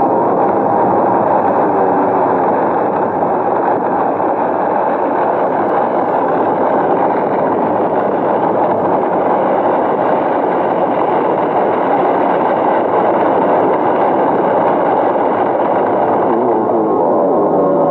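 A loud, steady rushing roar with no rhythm and no clear pitch, part of a film soundtrack. Near the end, pitched ambient music begins to come in over it.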